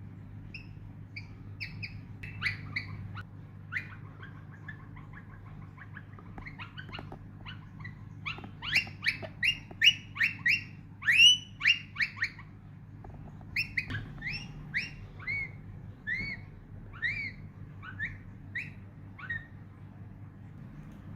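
Rose-ringed parakeet calling: a run of short, sharp chirps, coming quicker and louder around the middle, over a steady low hum.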